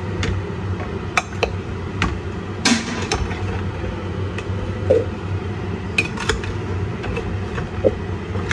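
Metal spoon clinking and scraping against a stainless steel pot while seasoned turkey pieces are turned over in it without water. There are irregular sharp clinks, a few to a second at most, over a steady low hum.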